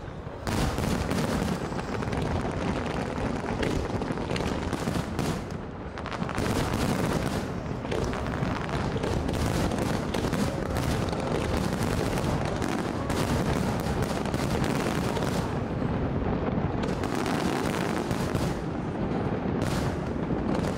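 A fireworks display with shells bursting in rapid, overlapping succession, a near-continuous barrage of bangs. It starts in earnest about half a second in and dips briefly near six seconds.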